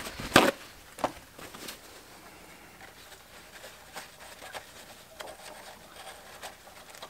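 Paper towel rustling as hands work it into a metal radio chassis to grab a loose capacitor. A sharp handling knock comes just after the start, a softer one about a second in, then faint scattered rustles and ticks.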